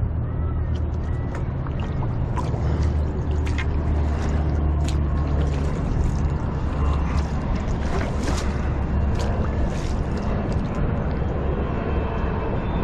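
A steady low engine drone runs throughout, with scattered sharp clicks and ticks over it.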